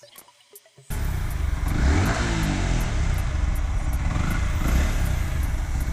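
Yamaha R15 v3's single-cylinder motorcycle engine running, coming in suddenly about a second in and revved up twice, about two seconds in and again nearer the end.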